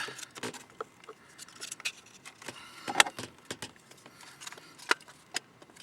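The plastic cover of a Honda main relay (fuel pump relay) being worked off its base: a series of irregular sharp plastic clicks and short scrapes, the loudest snap about three seconds in.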